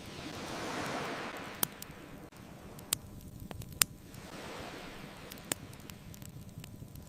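Ocean waves washing onto a beach, swelling about a second in and again around five seconds, with four sharp pops from a crackling bonfire, the loudest a little before four seconds.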